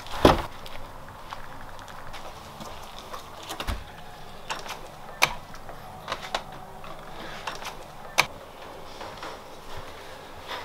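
A car door slamming shut with a loud thud at the start, followed by a low thump and a few sharp clicks and knocks.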